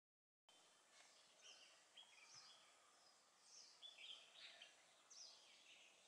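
Faint chirping of small birds, starting about half a second in: many short, mostly falling chirps, some overlapping, over a soft outdoor hiss.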